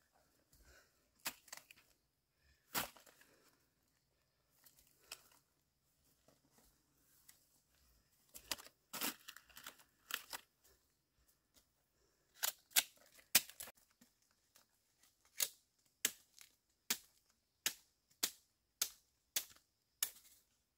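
Sharp snaps, knocks and rustling as bamboo shoots are handled in the undergrowth and loaded into a woven basket. The sound ends in a regular run of crisp clicks or knocks, a little under two a second, over the last few seconds.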